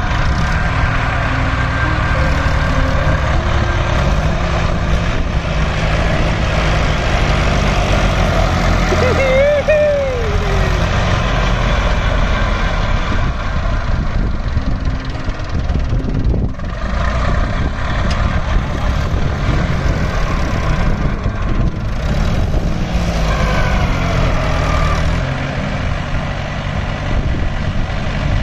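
Two diesel tractor engines running hard together as one tractor tows the other, stuck in soft sand, out on a rope; the engine notes rise and fall a little with the throttle.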